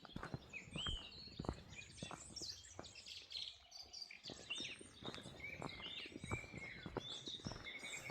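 Several wild songbirds singing and chirping together, short rising and falling notes overlapping throughout, with irregular soft knocks mixed in.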